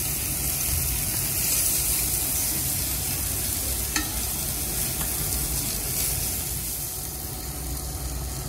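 Pork belly pieces sizzling steadily in hot oil in a frying pan, with a few light clicks of wooden chopsticks as browned pieces are lifted out.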